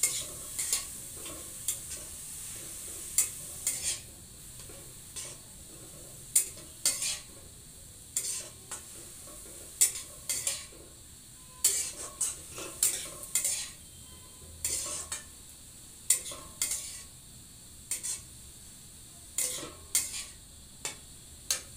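A ladle scraping and stirring halwa as it fries in a metal kadai, in irregular strokes about once or twice a second over a steady sizzle.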